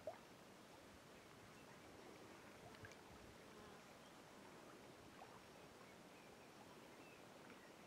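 Near silence: faint outdoor background hiss, with a few brief faint chirps.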